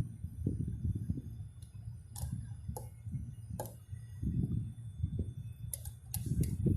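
Irregular sharp clicks and ticks of hand work with tools and wires, spread unevenly and bunched near the end, over a low, uneven rumble of handling noise.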